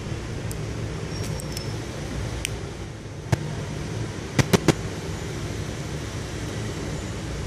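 Small sharp clicks from fingers working a smartwatch's hinged metal SIM-card holder and nano SIM: one a little past three seconds in, then three quick ones about a second later, over a steady low background hum.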